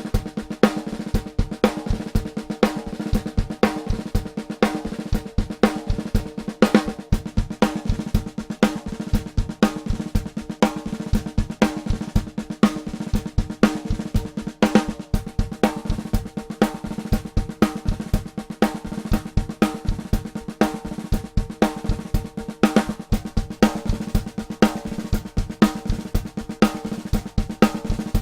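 Drum kit playing a steady, busy groove, heard through a close snare drum microphone: ringing snare hits over kick drum and hi-hat.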